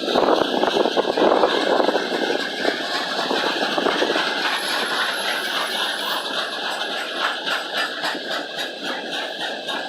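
Freight train rolling past, its wheels clicking over the rail joints in a rapid steady clatter with a rumbling rush, loudest in the first few seconds and easing a little after.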